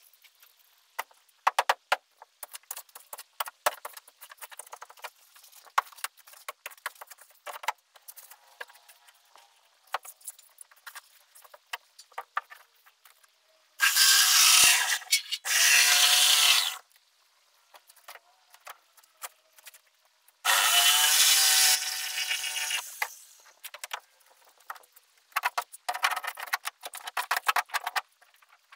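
A power tool is run in three short bursts of one to three seconds each, cutting into material, with scattered knocks and scrapes between the bursts. It is the work of cutting out a boat hull's stringer.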